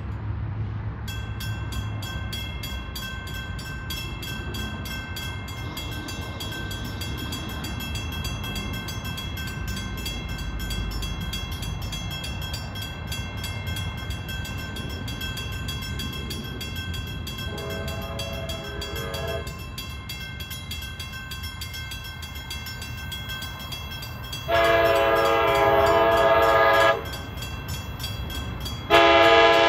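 Approaching train's low rumble with a locomotive horn sounding for the crossing: a fainter blast about 18 seconds in, a long loud blast around 25 seconds, and another loud blast starting near the end. The horn is a multi-note chord.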